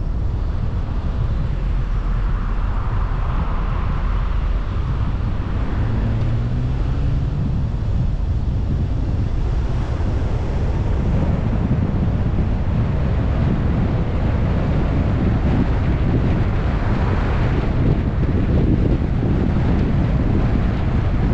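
Wind buffeting the microphone of a camera on a moving car, over a steady low road rumble. About six seconds in, a low tone rises briefly in pitch.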